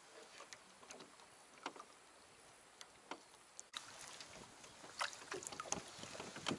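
Light knocks and clicks from fishing gear being handled in a small rowboat, over a faint hiss of water and wind. The hiss steps up suddenly about halfway through, and the knocks come more often after that.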